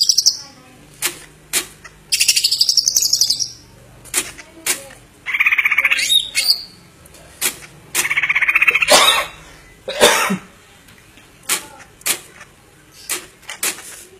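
Greater green leafbird (cucak ijo) singing: loud phrases of fast, buzzy chattering, each about a second long, three times, with sharp single chips and clicks between them.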